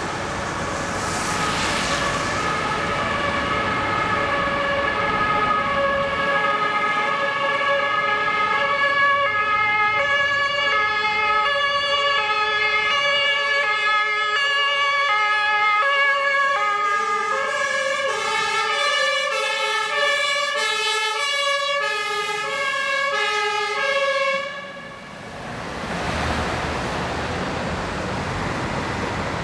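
German two-tone emergency horn (Martinshorn) on fire-brigade emergency vehicles, alternating steadily between two pitches, each held for under a second. Later on the pattern turns broken, as if a second horn were sounding out of step. It cuts off sharply near the end, leaving passing-vehicle and road noise.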